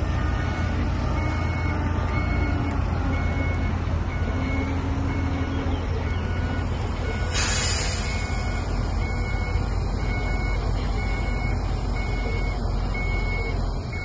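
Reversing alarm beeping at an even pace over the steady rumble of a loaded diesel dump truck backing up. A short burst of hiss about halfway through, like an air-brake release.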